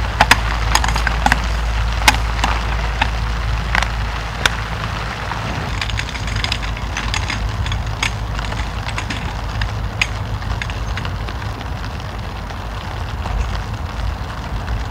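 Irregular sharp snaps and cracks of wood, several a second in the first few seconds and thinning out later, over a steady low rumble.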